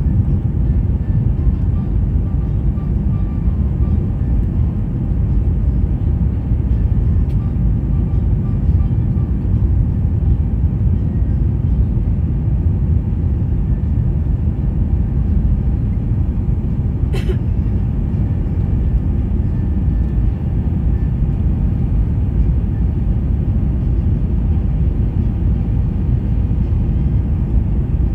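Steady low rumble inside a jet airliner's cabin on approach, the engines and the airflow over the wing with its flaps extended. A single short click sounds about two-thirds of the way through.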